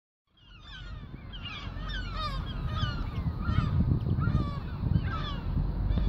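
A flock of gulls calling, short cries repeating and overlapping, over a steady low rumble. The sound fades in just after the start.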